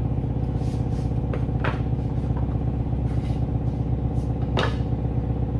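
A motor or engine running steadily with an even, low pulsing drone. Three short scraping or knocking sounds come over it, the last and loudest near the end.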